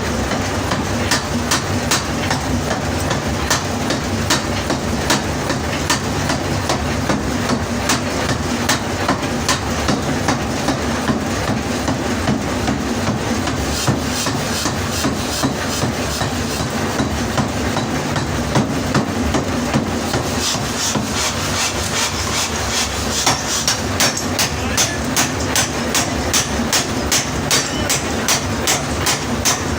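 Forging hammer pounding a loader rickshaw axle in a steady rhythm of about two to three blows a second, over a continuous low machine hum. The blows ring sharper and brighter from about twenty seconds in.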